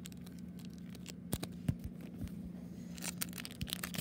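Handling of trading cards and their foil booster-pack wrapper close to the microphone: a few sharp clicks about a second and a half in, then a quick burst of crinkly rustling about three seconds in.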